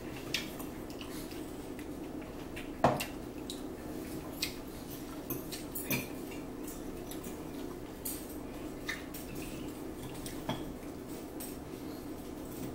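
Metal forks clinking and scraping against salad bowls as two people eat, with scattered sharp clicks (the loudest about three seconds in) over a steady low hum.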